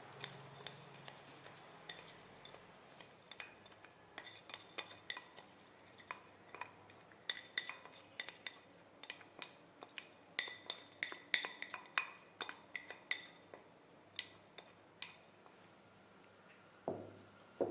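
A spoon clinking and tapping against a bowl again and again as soaked rice is spooned in, each clink ringing briefly. The clinks come quickly and irregularly, busiest in the middle, and there is a dull knock near the end.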